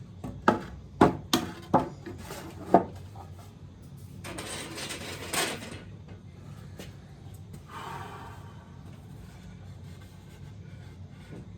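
Wooden objects being shifted around by hand: five sharp wooden knocks in the first three seconds, then scraping for about two seconds, and a softer rub later on.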